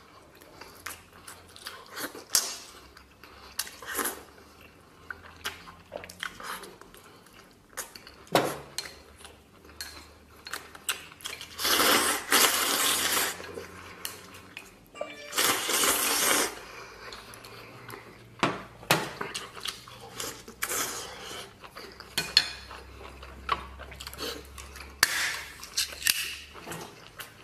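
Eating utensils repeatedly clinking and tapping against dishes during a meal of noodles and meat. There are two longer, louder rushing sounds about 12 and 16 seconds in.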